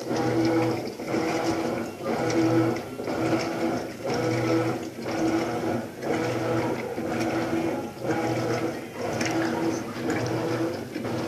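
Maytag washing machine running its rinse cycle: a motor hum that swells and dips in a steady back-and-forth rhythm of about one stroke a second, as the agitator churns the rinse water.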